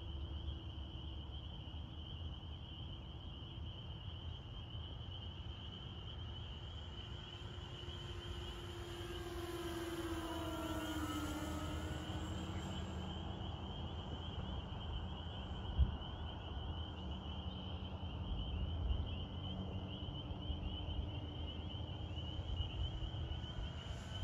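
Electric motors and propellers of a remote-control B-25 Mitchell model droning as it flies a pass, the pitch dipping as it goes by about ten seconds in, over a low wind rumble. A single short knock comes about two-thirds of the way through.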